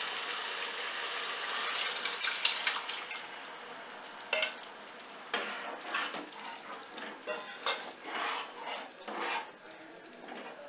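Boiled chickpeas and their water going into hot fried masala in a nonstick kadai, sizzling for the first few seconds. The sizzle then dies down while a metal ladle stirs, scraping and clacking against the pan.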